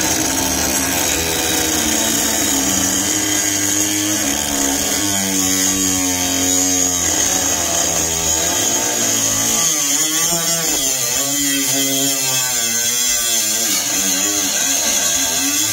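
Milwaukee M12 FUEL 3-inch compact cut-off tool running flat out, its abrasive wheel grinding into a clamped steel channel: a steady high whine over a harsh grinding hiss. In the second half the motor's pitch dips and recovers again and again as the wheel is pressed harder into the cut.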